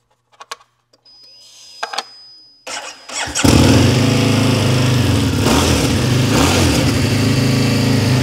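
A Ronin 47 motorcycle's Buell 1125R V-twin being started. After a few clicks and a faint whine as the ignition is powered up, the starter cranks briefly about three seconds in, and the engine catches and settles into a steady idle with a couple of short throttle blips. The exhaust is not too loud.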